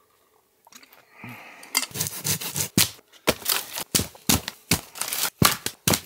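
Footsteps crunching over dry twigs and forest floor litter, a quick run of crisp steps starting about two seconds in after a near-silent start.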